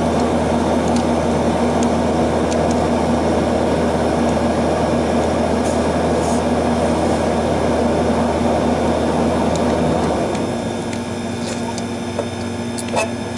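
Air-conditioning condensing unit running with a steady hum and fan rush, shutting off about ten seconds in. A few small metal clicks of a screwdriver on the compressor contactor's terminals follow near the end.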